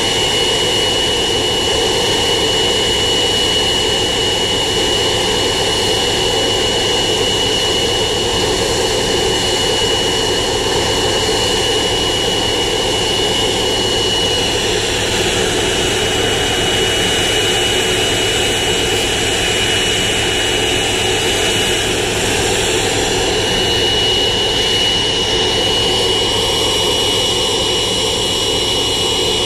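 Boeing 777-200ER's two turbofan engines running steadily during a ground engine run. There is a broad, even rumble with a steady high whine over it.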